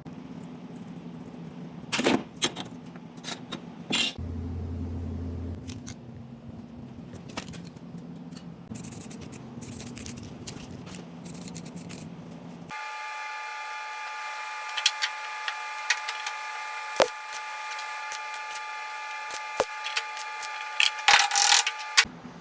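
Body-shop work noises: knocks and scraping over a steady hum, then a steady multi-tone whine of a running tool with clicks over it for the last nine seconds or so, which cuts off suddenly near the end.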